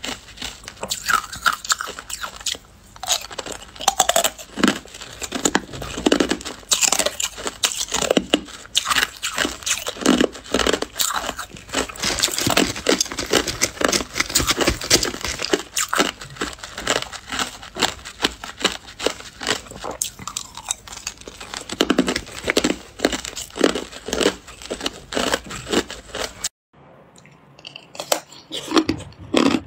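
Close-up crunching and chewing of hard ice cubes, a steady run of loud, irregular crunches. Near the end, after a short break, sharper bites into a block of clear ice.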